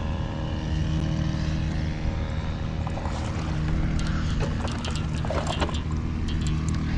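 A steady, low mechanical drone holding one even pitch, of the engine kind, with a few light clicks and rustles about four to six seconds in.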